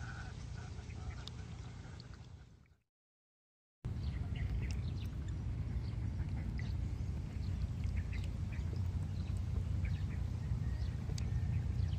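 Outdoor ambience: a steady low rumble with short, scattered high animal calls over it. The sound drops out completely for about a second near three seconds in.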